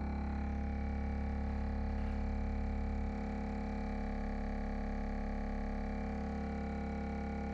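Subwoofers driven by a Worldtech WT-4099.4 Class D amplifier, playing a steady, deep bass tone. The bass note shifts about three seconds in.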